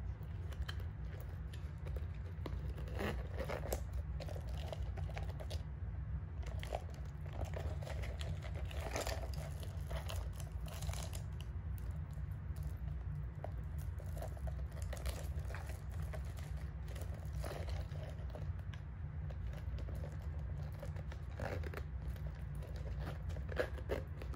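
Hands handling a black quilted leather Chanel vanity case as it is turned over and opened and its chain strap moved. Scattered soft rustles, crinkles and small clicks sound over a steady low hum.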